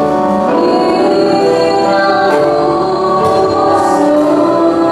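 A girl singing into a handheld microphone with instrumental accompaniment, holding long notes.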